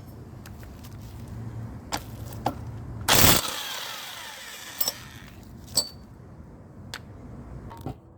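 Tools and small metal parts clicking and knocking as they are handled, with one loud metallic clatter about three seconds in that rings on briefly.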